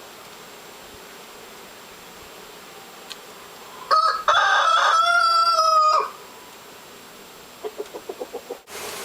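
A rooster crows once, a single loud call of about two seconds starting about four seconds in, followed near the end by a quick run of short clucks.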